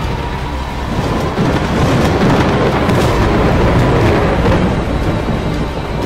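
Thunder rumbling as a sound effect in an intro soundtrack, swelling about a second in and easing off near the end, over background music.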